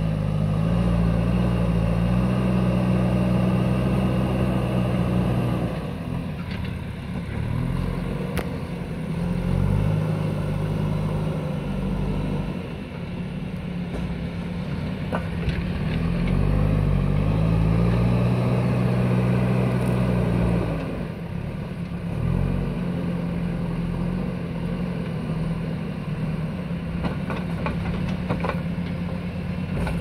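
JCB backhoe loader's diesel engine working under load as the machine pushes soil with its front bucket. The engine revs up and holds high for several seconds, drops back, and revs up again about halfway through, then settles lower.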